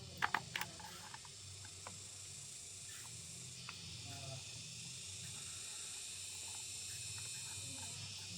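A few quick, sharp clicks near the start, then a steady high hiss that grows a little louder about halfway through, over a faint low hum.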